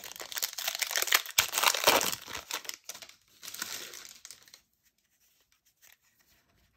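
A trading card pack's wrapper being torn open and crinkled for the first three seconds or so, followed by softer rustling that dies away to near silence about two seconds before the end.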